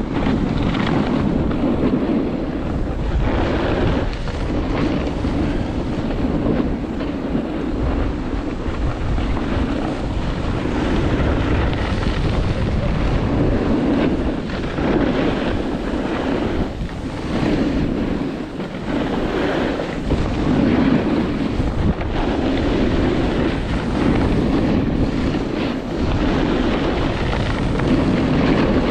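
Wind rushing over the microphone and a snowboard sliding and carving on packed, groomed snow. The noise swells and eases every few seconds.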